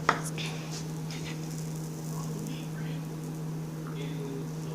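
Faint scattered crackling and ticking of ice melting on a hot, burnt chicken nugget, with a sharp click just after the start, over a steady low hum.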